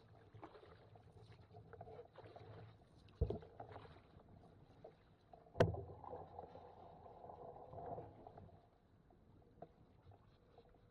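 Canoe being paddled on calm water: quiet paddle strokes and water swishing, with two sharp knocks on the canoe a couple of seconds apart, the second followed by a longer swish of water.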